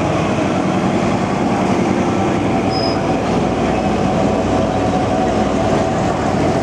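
Passenger train rolling slowly past behind a VR Dr16 diesel locomotive. The diesel's low engine drone drops away at the start, then a second locomotive and coaches pass with steady wheel-on-rail rumble. A short high squeal comes about three seconds in.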